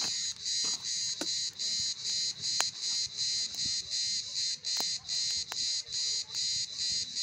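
Cicadas singing in a loud, high-pitched pulsing drone, about three pulses a second, with a few light taps and clicks.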